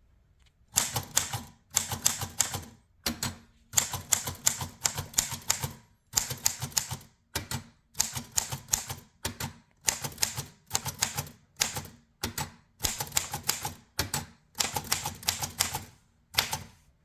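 1932 Royal Signet portable typewriter being typed on: quick runs of key strikes, each run about a second long, separated by short pauses. The machine is working properly after a new drawcord and ribbon.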